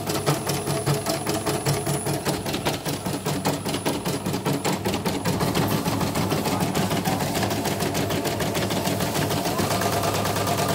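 CNY portable embroidery machine running, its needle making a rapid, even clatter of stitches as it sews a design.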